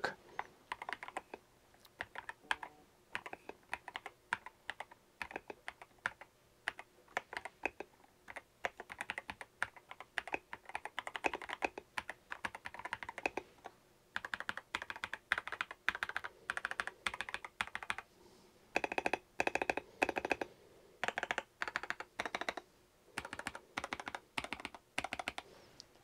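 Typing on an AJAZZ AK966 gasket-mounted mechanical keyboard: runs of key clicks with short pauses, a brief lull past the middle and a fast flurry soon after. The keystrokes sound well dampened.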